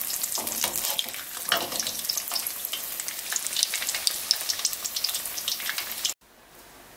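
Battered pumpkin sticks frying in hot oil in a wok: a steady sizzle thick with fine crackling pops. It cuts off abruptly about six seconds in, leaving only a faint hiss.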